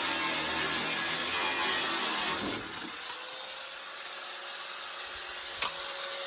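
Power tool cutting through the sheet metal of a pickup bedside panel, stopping abruptly about two and a half seconds in. A quieter stretch with a faint steady hum and a single sharp click follows.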